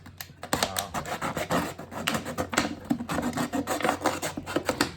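Something being cut by hand: a quick run of rasping, scraping strokes as the blade works through the material.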